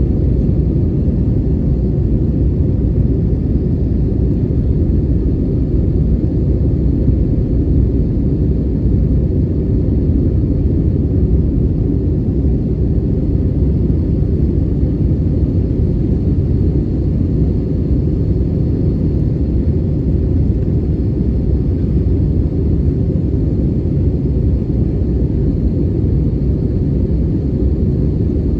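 Steady low rumble of cabin noise inside an Airbus A320neo in flight, the drone of its Pratt & Whitney geared turbofans and the airflow over the fuselage.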